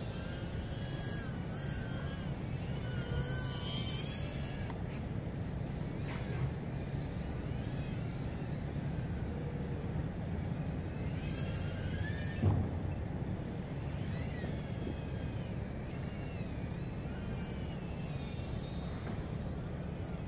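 Brushless motors of an LDARC ET100 micro racing quadcopter whining in flight, the pitch rising and falling with the throttle, over a steady low rumble. A single short thump about twelve seconds in.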